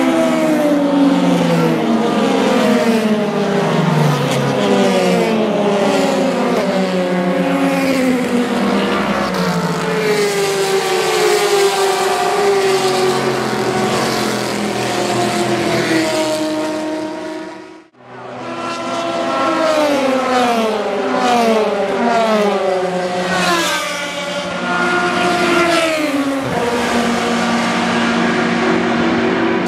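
Endurance race cars (LMP prototypes and GT cars) passing at racing speed, several engines overlapping, their pitches falling as each car goes by. The sound breaks off abruptly about 18 seconds in and starts again at once.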